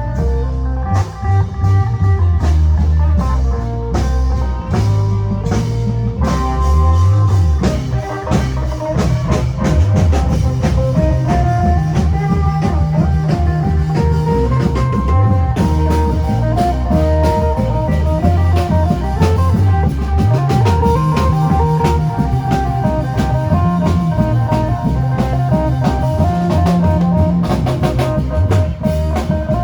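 Isan phin band playing lam phloen: a plucked phin lute melody over a drum-kit beat and a low bass line.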